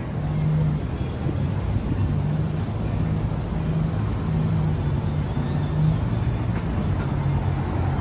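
City street traffic: a steady low engine hum from vehicles idling and moving close by.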